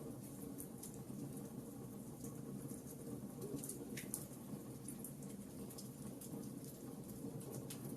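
Wood fire crackling in a fireplace: irregular small pops and snaps, one a little louder about halfway through, over a steady low rush of the burning fire.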